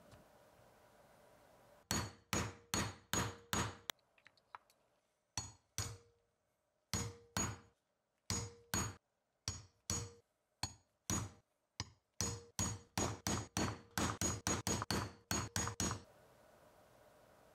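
Hammer strikes with a short ringing tone after each, about thirty-five blows in all. They come in runs: a quick run of six, a pause, then pairs and triplets, and a fast run of a dozen and more near the end.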